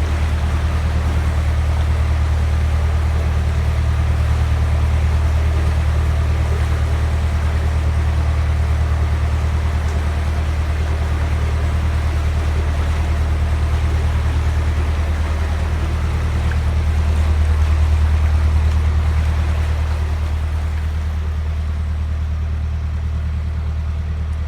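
Narrowboat's diesel engine running steadily under way, a deep even drone. It grows a little louder about three-quarters through, then eases off near the end.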